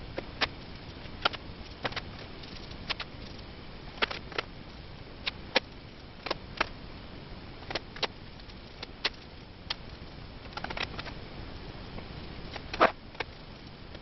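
Scattered light taps and clicks, about one a second, from a paintbrush and hands working paint onto a wooden table frame, over a steady low hiss. The sharpest knock comes near the end.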